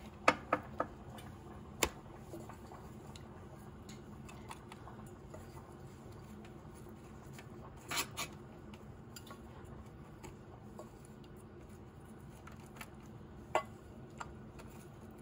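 Pastry brush dabbing melted butter onto halved langoustines in a stainless steel tray. The brush and shells give scattered sharp clicks and knocks against the metal: a few in the first two seconds, a cluster about eight seconds in, and one more near the end.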